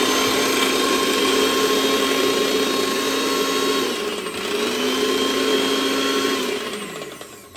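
Electric mixer grinder running with its small steel jar grinding fresh henna leaves: a steady motor whine that eases off briefly about four seconds in, picks up again, then winds down with falling pitch near the end.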